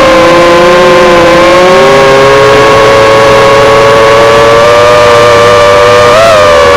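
Brushless motors of a 3-inch FPV quadcopter (HX115) whining loudly in flight: one steady tone with a second one drifting up and down as the throttle changes, and a brief rise in pitch about six seconds in.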